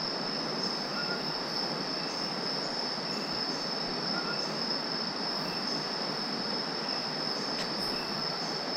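Night-time rainforest insect chorus: a steady high-pitched insect trill over a dense, even hiss, with faint short chirps about once a second.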